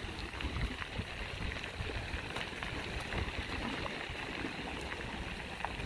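Rain runoff water rushing: a steady noisy rush with an uneven low rumble and scattered small clicks and splashes.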